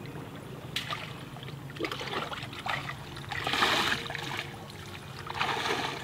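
Shallow water sloshing and splashing around a person's legs as he wades through it. The splashing swells loudest about halfway through and again near the end.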